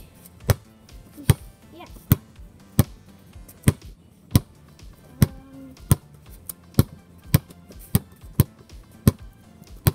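Basketball being dribbled: about fourteen sharp bounces, at first a little under a second apart, quickening to about two a second in the second half.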